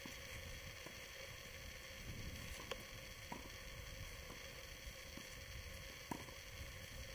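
Tennis balls struck during a doubles rally, a few faint sharp knocks spaced a second or more apart. They are heard over a steady hiss from a camera's built-in microphone.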